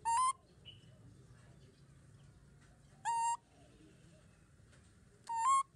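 Baby macaque giving three short, high coo calls, each sliding up and then holding a steady pitch, spaced a couple of seconds apart; the last rises again at its end.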